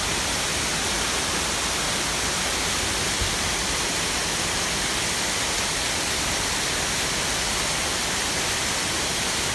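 Waterfall cascading down stepped rock ledges: a steady, even rush of falling water.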